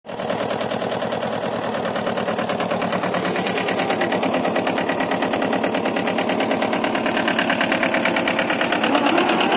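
Small power weeder engine running steadily with a rapid, even pulsing beat as it pulls a four-disc harrow through the soil between crop rows.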